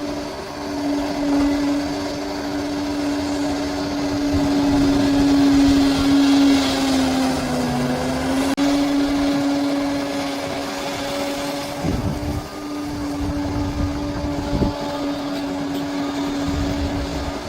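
Large crawler bulldozer's diesel engine running steadily. It grows louder and briefly drops in pitch about halfway, as it does when lugging under a push, and there are two dull thumps later on.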